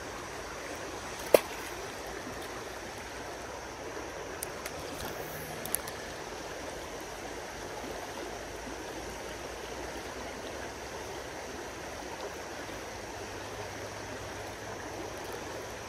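Shallow creek water running steadily over riffles, with one sharp knock about a second in and a few faint clicks midway.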